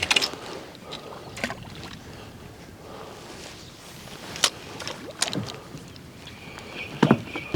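Wind and water noise aboard a small fishing boat, with a handful of short, sharp knocks scattered through it.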